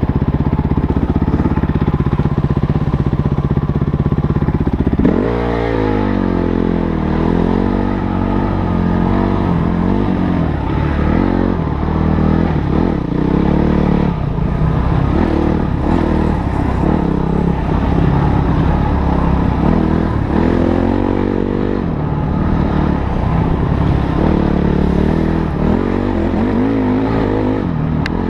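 Motorcycle engine being ridden. It runs at a steady pitch for about five seconds, then its pitch rises and falls again and again as the throttle opens and closes.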